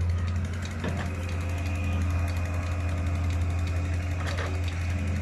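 Diesel engines of a Hitachi excavator and a Massey Ferguson 385 tractor running steadily with a deep drone, while the excavator works its bucket loading soil. A couple of short knocks come about a second in and again near the end.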